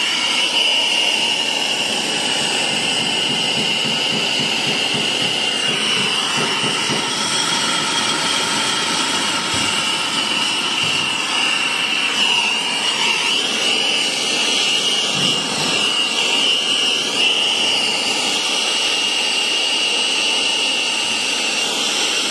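Handheld gas torch flame hissing steadily as it heats a copper pipe fitting for soldering.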